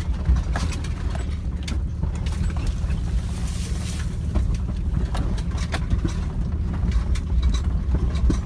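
Cabin rumble of a lifted 2000 Jeep Cherokee crawling along a rough dirt trail, with frequent clicks and knocks as the body jolts over the ruts.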